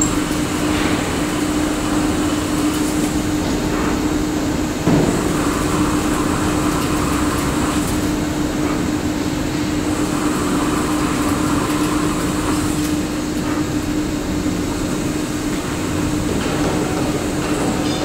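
CK6166 CNC lathe running with a steady mechanical hum and a constant low whine, with a single sharp knock about five seconds in.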